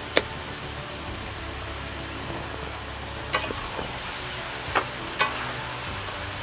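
Pork pieces with turmeric sizzling steadily in a steel kadhai over a wood fire. There is a sharp click just after the start. From about three seconds in, a metal ladle stirs the meat and knocks against the pan a few times.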